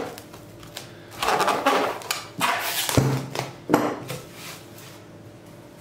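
Kitchen handling noises around a dough bowl: rustling and clinks, with a sharp knock about three seconds in and another just under a second later.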